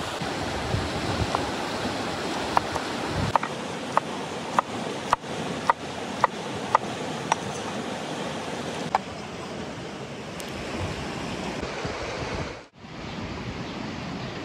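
Knife chopping vegetables on a cutting board, a sharp tap about every half second, stopping about halfway through. The steady rush of a full river runs underneath.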